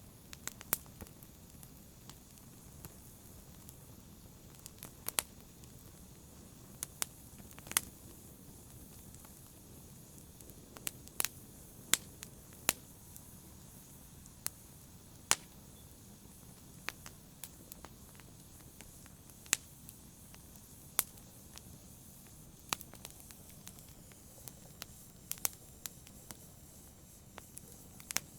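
Wood fire crackling in a fireplace: irregular sharp pops and snaps, a few every couple of seconds, over a low steady hiss of the burning.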